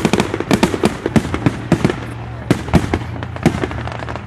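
Fireworks going off in a rapid, irregular barrage of sharp bangs, several a second.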